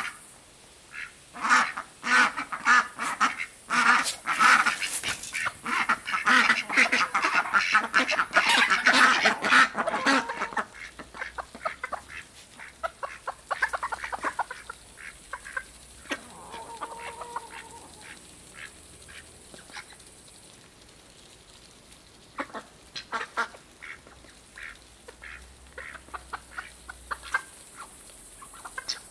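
Indian Runner ducks quacking loudly and in rapid succession for the first third. Their calls then thin out to a quieter stretch of short clicks of bills pecking grain from the ground, with a few calls again near the end.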